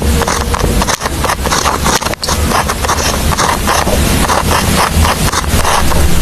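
Pen scratching across paper in quick, uneven writing strokes, with short breaks as the pen lifts.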